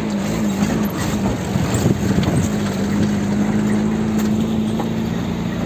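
A vehicle engine running: its pitch wavers for the first couple of seconds, then holds steady.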